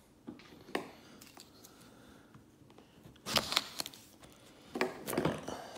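Plastic shrink-wrap on a cardboard hobby box being slit open and handled: a couple of faint taps, then two short bursts of crinkling plastic, a little past three seconds and again near five seconds.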